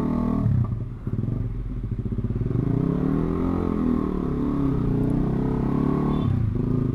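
Honda CB150R's single-cylinder engine running on the move, its revs rising and falling once around the middle.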